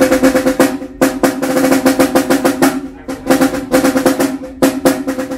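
Marching drums playing a fast cadence with rolls, in several short runs broken by brief pauses.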